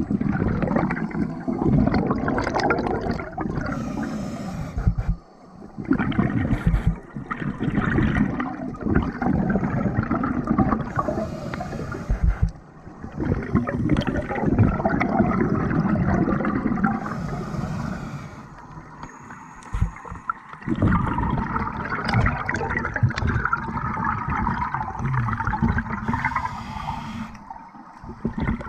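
Scuba breathing underwater through a regulator: slow breath cycles, each a short hiss of inhalation followed by a long rush of gurgling exhaled bubbles.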